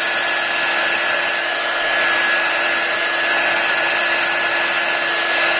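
Handheld hot-air blower running steadily, a constant rushing blow with a fixed motor whine, heating the iPad's glass to loosen the adhesive underneath.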